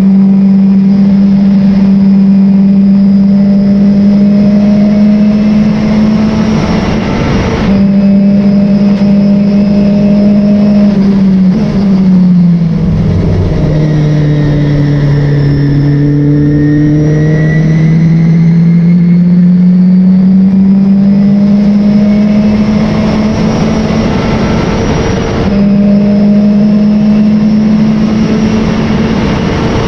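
Race car engine heard on board at steady high revs over a constant rush of noise. A little under halfway through, its pitch drops as the car slows, then climbs gradually back up over the next ten seconds or so.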